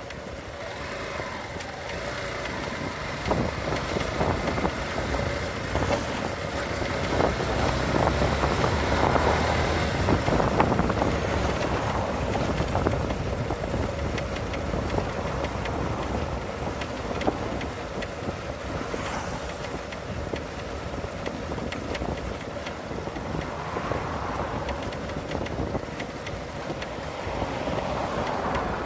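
Yamaha Factor 150 single-cylinder motorcycle ridden over rough pavement, running with road and wind noise, with many short sharp clicks and knocks throughout. These are the unexplained snapping noise from the front of the bike that shows up only on uneven surfaces such as cobblestones.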